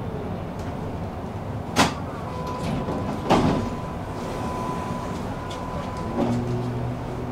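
Inside a tram, the doors work with two knocks about a second and a half apart, the second one louder. A faint steady tone follows, and near the end a low steady hum of the tram's equipment sets in.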